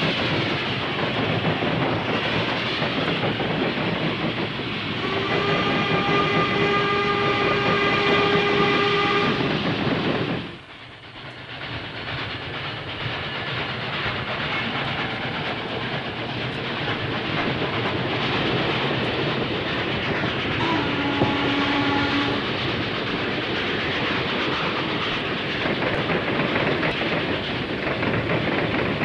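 Steam-hauled freight train running past with the clatter of wheels over rail joints. A long steam whistle blast sounds a few seconds in, and a shorter, lower whistle blast comes about two-thirds of the way through. The sound drops out briefly near the middle.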